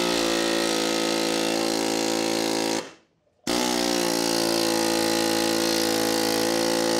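Pneumatic air hammer hammering rapidly against the end of the axle shaft in the wheel hub, driving the shaft out. It runs in two long bursts with a short break about three seconds in.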